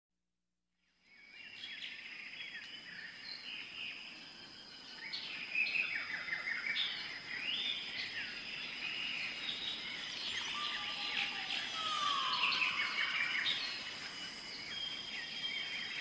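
A chorus of small birds chirping and trilling, many voices overlapping, over a steady thin high-pitched whine. It fades in about a second in.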